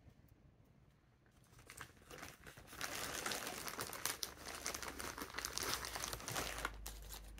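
Plastic packaging crinkling and rustling in the hands as items are pulled from the box, starting about two seconds in.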